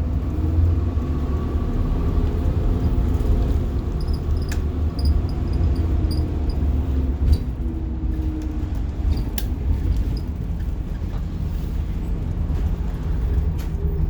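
Rear-mounted diesel engine of a 1990 Blue Bird All American school bus running steadily, heard from inside the bus cabin, with a few light clicks and rattles.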